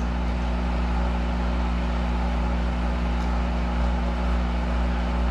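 1983 Monarch 10EE lathe running with its spindle turning, a steady, even hum made of several low tones and no cutting noise.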